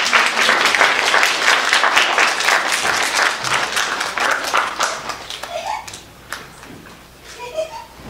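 Audience applauding, a dense patter of many hands clapping that dies away after about five seconds. A few short high calls from children follow near the end.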